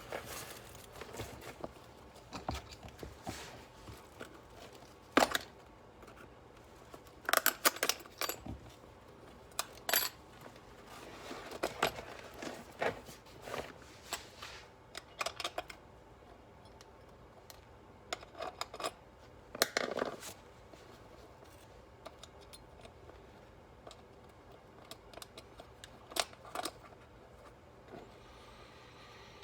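Irregular clicks, taps and short scrapes of hand work on a motorcycle seat: small metal tools and parts being handled and set down, with quiet gaps between them.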